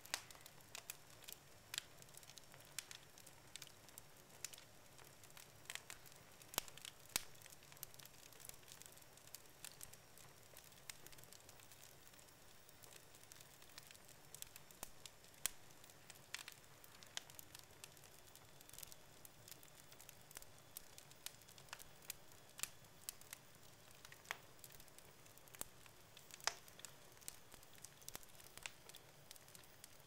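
Wood logs burning in a fireplace, crackling with frequent sharp pops at irregular intervals over a faint steady hiss; a few pops stand out louder than the rest.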